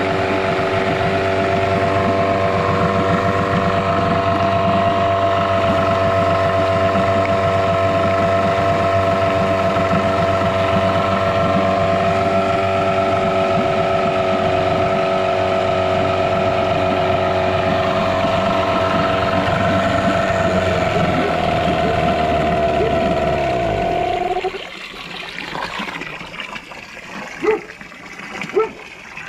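Yamaha 6 hp two-stroke outboard running steadily with its leg in a drum of water. About 24 seconds in, its pitch sags and it winds down and stops, leaving water trickling from a hose into the drum.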